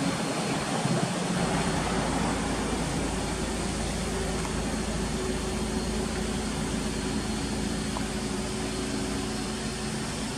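Mitsubishi Lancer Evolution Wagon GT's turbocharged four-cylinder engine idling, a steady even hum with a low rumble that settles in about a second and a half in.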